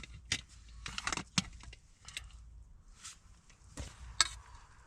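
Metal camp cookware and utensils clinking and clattering: a series of sharp, irregular clinks as pots, lid and spoon are handled to serve a meal.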